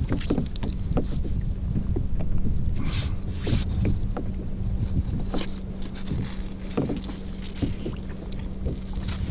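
Knocks, clicks and water sounds around a fishing kayak at sea, over a steady low rumble of wind on the microphone. A brief louder hiss comes about three seconds in.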